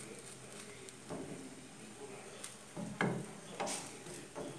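Wooden spatula scraping and knocking against a nonstick frying pan as a pancake fries, over a faint sizzle. A few separate strokes, the loudest about three seconds in.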